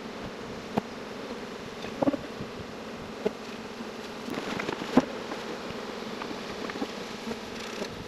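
Honey bees buzzing in a steady drone around open hives, with a few short sharp clicks scattered through it.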